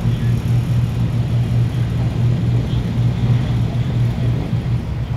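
Steady low engine drone, a deep unbroken hum that holds its pitch throughout.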